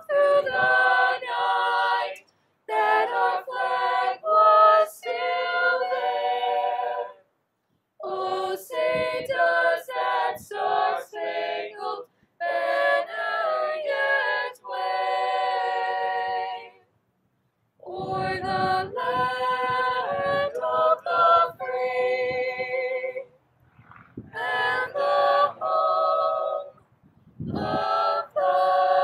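Unaccompanied singing: voices sing a slow melody in phrases of a few seconds, each followed by a short pause for breath.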